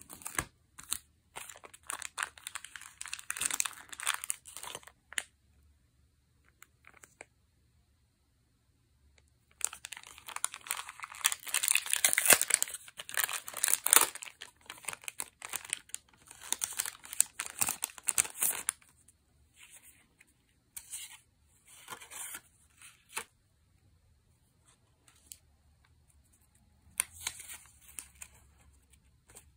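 Clear plastic packaging crinkling and being torn open by hand, with paper cards shuffled, in irregular bursts. There is a pause of a few seconds after about five seconds, then the longest, loudest run of crinkling, and a few short rustles near the end.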